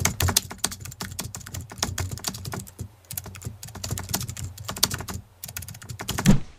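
Keyboard typing sound effect: a rapid run of key clicks, broken by two short pauses about three and five and a half seconds in, ending on a louder final keystroke near the end.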